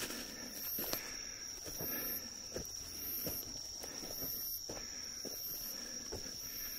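Footsteps on a forest path through undergrowth at an uneven walking pace, over night insects singing: one steady high trill and another pulsing about once a second.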